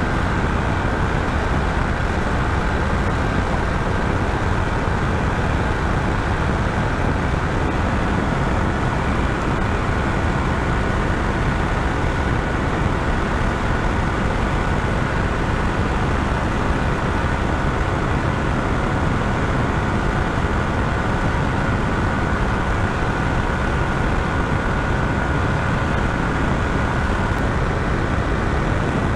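Steady rush of wind over the microphone mixed with the Yamaha Tracer 700's parallel-twin engine held at constant high revs near top speed, about 180–185 km/h, with a faint steady engine whine under the wind.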